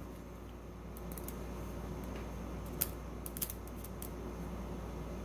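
Scattered light metallic clicks and taps of tools working a padlock's core out of the lock body.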